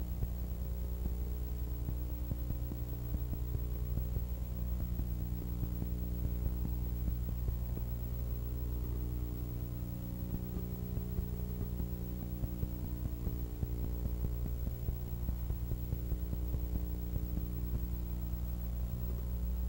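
Steady electrical hum, a low buzz with a stack of evenly spaced overtones that holds unchanged throughout.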